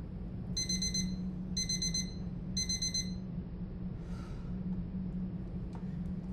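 Electronic alarm beeping three times, about once a second, each beep a short high tone, over a steady low hum.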